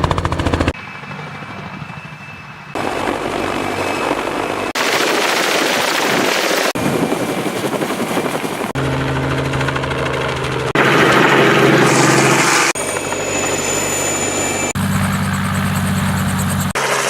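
Helicopter rotor and engine sound in a string of short cuts, each lasting about two seconds and changing abruptly in pitch and loudness.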